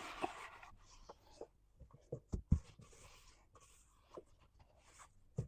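Wet rag wiping and rubbing inside an oven, with a few dull knocks around the middle and one near the end.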